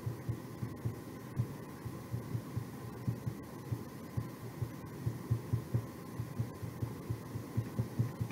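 Fingertips dabbing and rubbing paint onto chipboard letters lying on a tabletop: dull, soft taps a few times a second, irregular and louder in the second half, over a faint steady hum.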